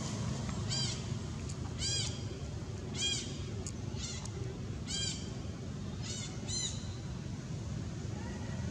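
Baby macaque crying: a string of short, high, arching calls, about one a second, over steady low background noise.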